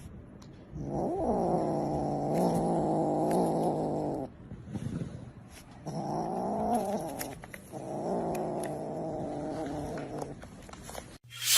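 A cat yowling in three long, drawn-out calls, the first lasting about three seconds, with the pitch bending up and down.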